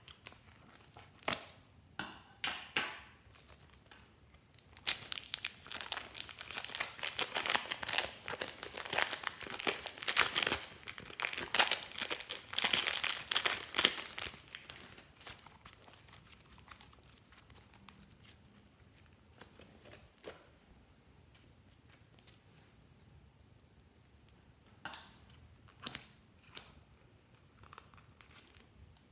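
Plastic piping bags filled with slime crinkling and crackling as hands squeeze and handle them. The crinkling is dense for several seconds in the middle, then thins to scattered light clicks.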